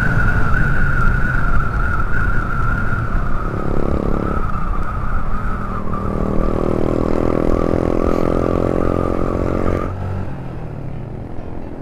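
Motorcycle riding at speed: engine running under load with heavy wind rush and a steady whine that slowly falls in pitch. The sound drops off sharply about ten seconds in.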